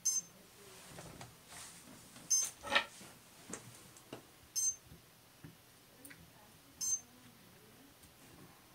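Quiet handling at an electric spinning wheel while a break in the cotton yarn is fixed. A short, sharp high tick repeats evenly about every two and a quarter seconds, over soft knocks and a brief rustle from hands at the flyer.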